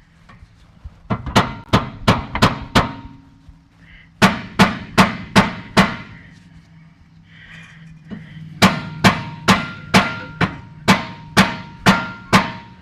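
Three runs of sharp hammer blows on metal, about two and a half a second: six, then five, then nine. A faint metallic ring sounds under them. This is the rear wheel hub being struck to drive it loose; it is stuck fast.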